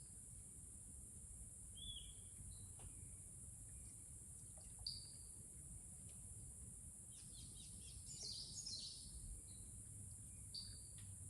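Faint tropical rainforest ambience: a steady high-pitched insect drone, with short descending bird calls every few seconds and a burst of rapid chirps about seven seconds in.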